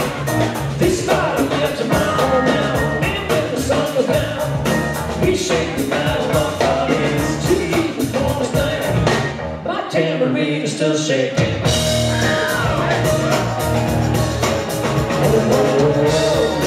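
Live jam-band rock with singing: electric bass, electric guitar, drums, keyboards and percussion playing together. About ten seconds in, the bass and drums drop out for roughly two seconds, then come back in.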